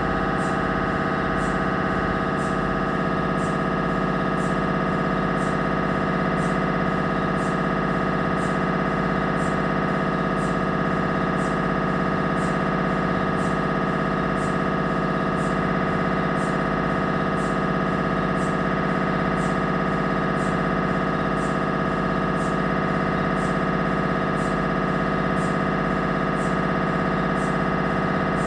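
Siemens Magnetom Avanto 1.5 T MRI scanner running a scan sequence: its gradient coils give a steady, unchanging pitched buzz, with a faint high click repeating about every half second.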